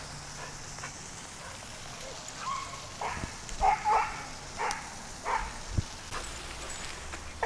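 A small dog in an excited play mood giving a series of about half a dozen short yips and barks, starting about two seconds in, over a steady background hiss.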